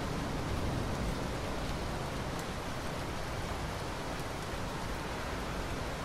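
Steady rain in a thunderstorm, an even hiss.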